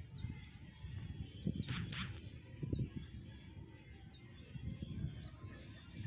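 Outdoor ambience of small birds chirping in the background over a low rumble of wind on the microphone, with a brief hiss about two seconds in.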